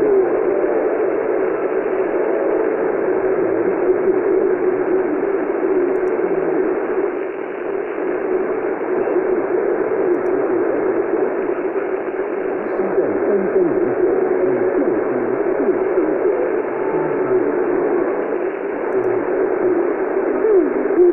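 Shortwave radio receiver tuned to a weak AM broadcast on 12500 kHz: steady static and hiss, cut off above about 3 kHz by the receiver's bandwidth, with a faint wavering signal buried in the noise.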